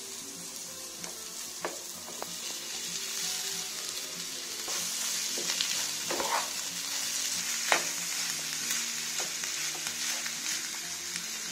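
Oil sizzling in a nonstick pan as boiled potatoes are stirred into fried onions and tempering with a spatula. The sizzle grows louder about halfway through, and the spatula scrapes and taps against the pan a few times.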